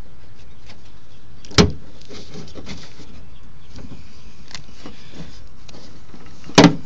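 Handling noises in an aluminum jon boat's storage compartment as the stowed navigation light pole and gear are handled: two sharp knocks about five seconds apart, the second louder, with faint rustling between, over steady background noise.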